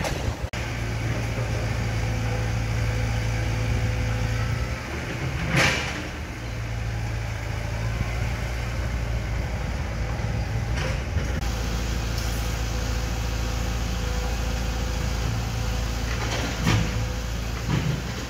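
Heavy construction machinery's diesel engine running steadily with a low hum, and a few short knocks over it: one about six seconds in and two near the end.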